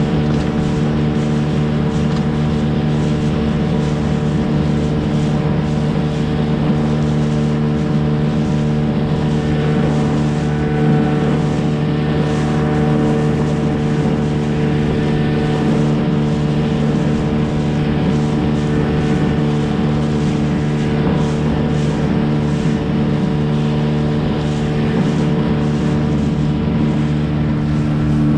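Gladiator 9.9 hp outboard motor running at a steady, unchanging speed, driving a small inflatable boat.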